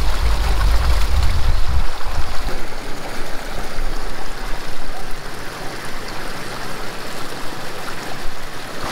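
Water pouring into a stone-lined pond through a small weir, a steady rushing splash. A deep rumble sits under it for the first two seconds, then drops away.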